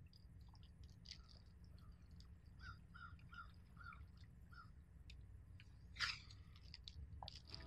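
Faint outdoor ambience over a low rumble: a bird calls a quick run of about six short notes, and there are a few faint ticks and one brief sharper sound near the end.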